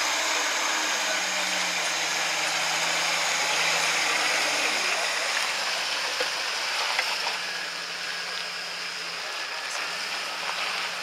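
Jeep Wrangler's 4.0-litre straight-six engine running at low revs as it crawls over rough dirt, under a steady hiss. The whole grows a little quieter after about seven seconds as it moves on past.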